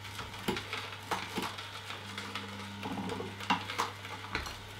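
Omega 8228 horizontal slow juicer running with a steady low motor hum as its single auger turns slowly, with irregular sharp cracks as carrot pieces are crushed in the chute.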